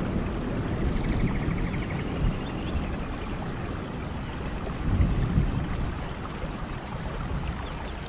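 Steady rain-and-running-water noise with a low rumble that swells about five seconds in. Faint animal calls sound over it: a rapid trill about a second in and short high chirps in groups of three or four, twice.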